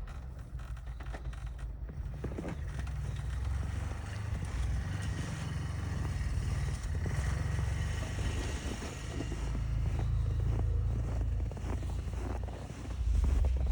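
Wind buffeting the microphone outdoors in a snowstorm: a continuous low rumble that rises and falls in gusts, swelling louder near the end.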